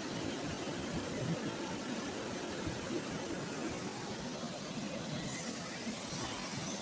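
River water rushing steadily just upstream of a weir.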